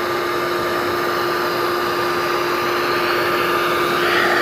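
Bee vacuum running steadily with a constant motor hum and whine as the beekeeper sucks up the swarm's bees; it gets a little louder near the end.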